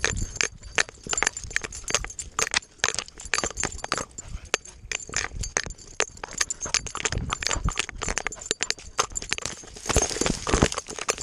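Rapid, uneven thuds and knocks of a running dog's paws, picked up by a GoPro strapped to the dog and jolting with each stride, with rustling of dry grass stalks against the camera near the end.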